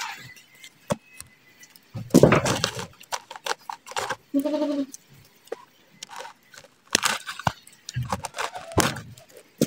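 Hands working crumbly potting soil against a black plastic polybag, with crunching and rustling and the clicks of scissors snipping small roots; the loudest crunching comes about two seconds in and again near the end. A short pitched call sounds once, about halfway through.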